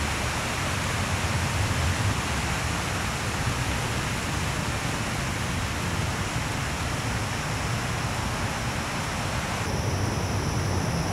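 Steady outdoor noise: an even hiss with a fluctuating low rumble. About ten seconds in, faint steady high tones join in.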